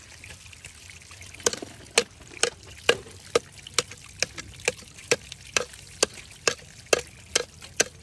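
Sharp, evenly spaced strikes of a hand tool, about two a second, starting about a second and a half in, over a faint trickle of running water.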